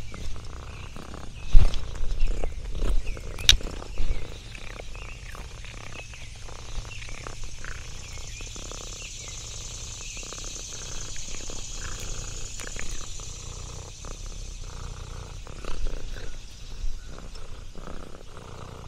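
Cat purring close to the microphone, a steady low rumble, with scattered small rustles and taps; several louder knocks in the first few seconds.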